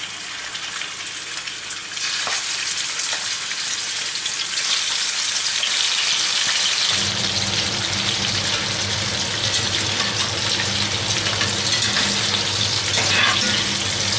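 Pieces of nutria meat sizzling as they fry in rendered internal fat in a cast-iron skillet. The sizzle grows louder in steps as more pieces go into the pan. A steady low hum joins about seven seconds in.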